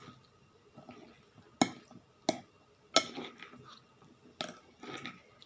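Close-up eating sounds: four sharp clicks and taps of cutlery on a plate, with quieter chewing between them.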